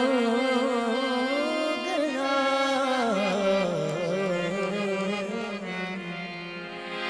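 Qawwali music: harmonium with a long, drawn-out sung note that wavers and slides in pitch, without drumming. It grows a little quieter toward the end.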